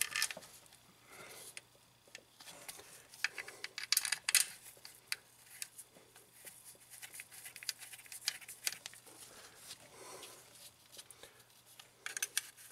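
Faint, irregular small metallic clicks and taps from hand-fitting the little 8 mm screws that hold a new clutch slave cylinder to the transmission case.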